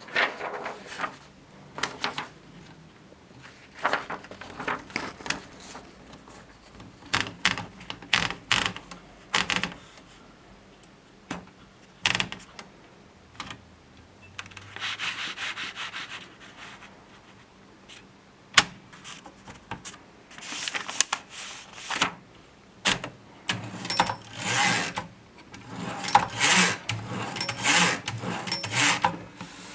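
Groma Kolibri portable typewriter being worked by hand: irregular clusters of clicks and clacks from its mechanism, mixed with several longer rubbing, sliding stretches.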